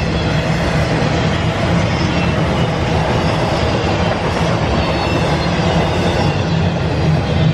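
Norfolk Southern freight train rolling past close by: a steady, loud rumble of wheels on rail, with no horn sounding.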